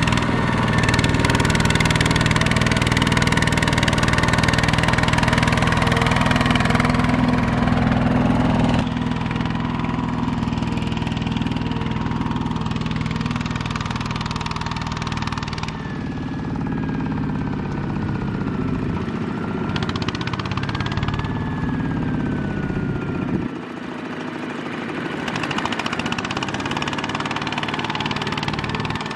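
Single-cylinder diesel engine of a two-wheel walking tractor running steadily under load as it pulls a loaded trailer through mud. Its level and tone change abruptly about 9, 16 and 23 seconds in.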